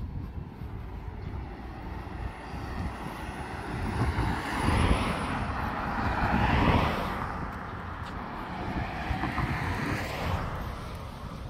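A passing vehicle over steady outdoor traffic noise. Its sound swells to a peak about halfway through and fades, with a smaller swell near the end.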